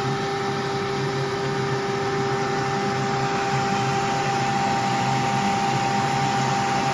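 CQ-38G sole-cavity milling machine running steadily, its motor giving a constant hum over a noisy whirr.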